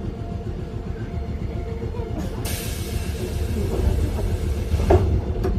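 A Randen (Keifuku Electric Railroad) tram heard from inside the car, with a steady low rumble and faint hum. About two seconds in, a hiss starts suddenly and runs for about three seconds, and a few knocks come near the end.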